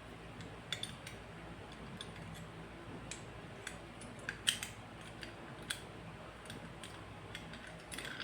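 Scattered light metallic clicks and taps as a safe lock and a steel mounting plate are handled and held together, over a low steady hum.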